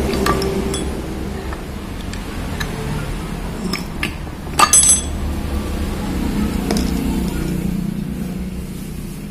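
Metal clinks and light knocks as a removed Honda CB150R cylinder head is handled and shifted on a tiled floor, with a sharp ringing clink about halfway through, over a steady low background hum.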